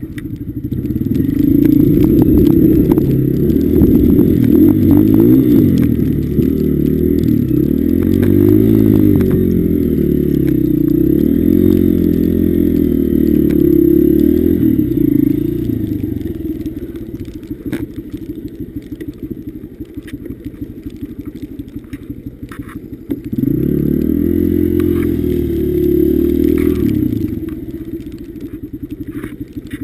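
Honda CRF150F dirt bike's single-cylinder four-stroke engine revving up and down as the bike is ridden through deep snow. About halfway through it drops to an even idle, revs up again for a few seconds, then falls back to idle near the end.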